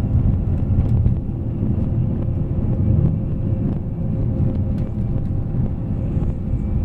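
Scania K440 bus's diesel engine running steadily under way on the highway: a deep, even rumble with a faint steady whine above it.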